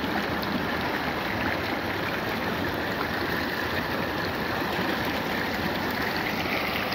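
Shallow glacier-fed mountain creek rushing steadily over a bed of cobbles and gravel.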